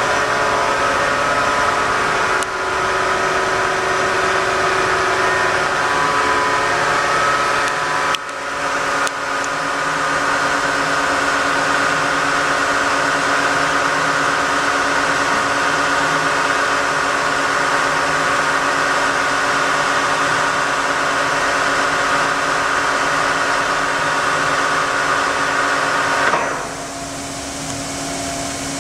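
Lagunamatic 3516 vertical machining center running with a steady, multi-toned mechanical whine. The whine dips briefly about eight seconds in and drops sharply near the end, when its higher tones cut out.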